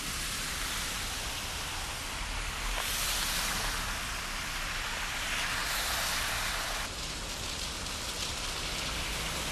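Steady hiss of heavy rain and car tyres ploughing through flooded road, the rushing spray swelling a few times as vehicles pass.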